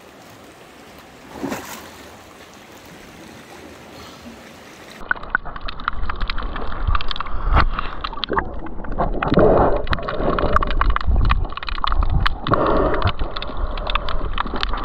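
Water sloshing and gurgling close against the microphone, muffled and irregular with many small clicks. It begins about five seconds in, after a faint steady hiss.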